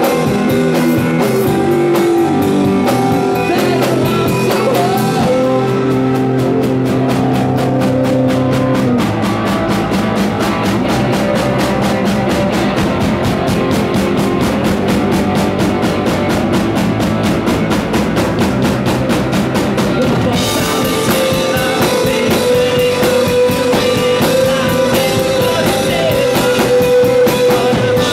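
Live rock band playing electric guitars and a drum kit to a steady, fast beat, the cymbals brightening about twenty seconds in, with a voice singing a held note near the end.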